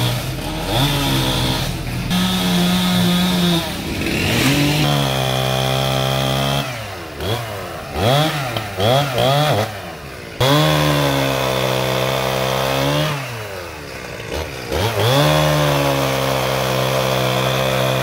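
Petrol chainsaw running at high revs in long steady stretches, dropping off and picking up again several times. Around the middle it is revved up and down in quick blips.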